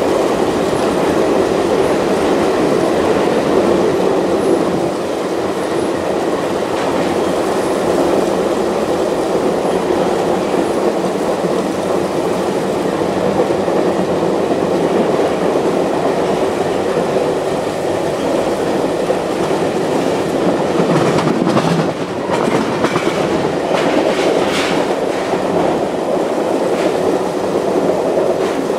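Excursion train rolling along at speed, heard from aboard: a steady rumble of steel wheels on the rails. A run of sharper clicks and knocks comes about three-quarters of the way in.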